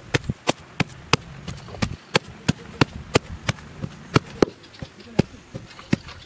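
Steady, evenly paced sharp knocks, about three strikes a second, like repeated chopping or pounding.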